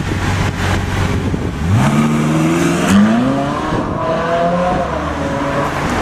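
Ferrari 458's V8 idling, then accelerating hard away: the revs climb steeply about two seconds in, break at a gear change about a second later, and climb again before easing off near the end.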